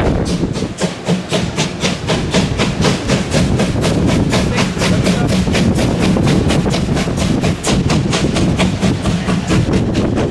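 Exhaust beats of the two-cylinder Reko 01.5 express steam locomotive 01 519 working at speed: a fast, even rhythm of sharp chuffs, about five a second, over the low rumble of the train rolling, heard from an open coach window.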